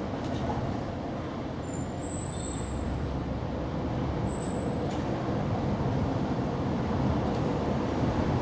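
Steady low background rumble, with a faint high tone about two seconds in and again, briefly, about four seconds in.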